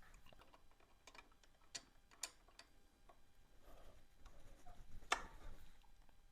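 Faint, scattered metal clicks from a wrench working the jam nut on a motorcycle's cam chain tensioner as it is locked down, with the loudest click about five seconds in.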